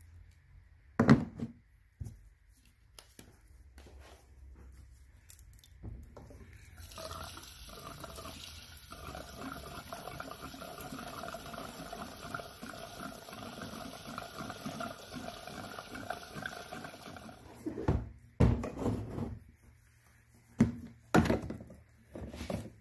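Gasoline pouring from a plastic gas can's spout into an ATV's fuel tank, a steady fill lasting about ten seconds. A single knock comes about a second in, and several knocks and clunks near the end as the fuel cap is handled and put back on.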